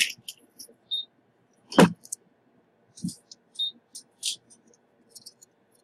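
Thin metal reballing stencils and small bench items clinking and scraping while being rummaged through, with scattered light clicks and a sharper knock about two seconds in.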